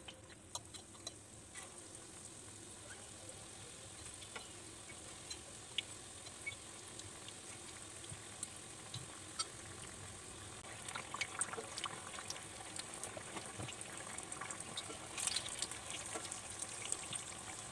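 Batter-coated capsicum slices deep-frying in hot rice bran oil: a steady sizzle with scattered pops and crackles, busier from about eleven seconds in.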